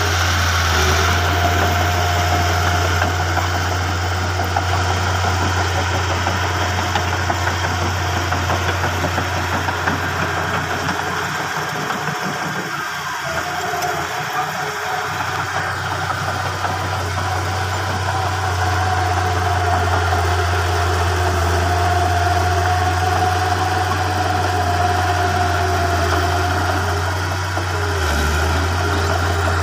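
Bulldozer's diesel engine running steadily while pushing dirt fill, with a strong low drone; it eases off briefly about halfway through.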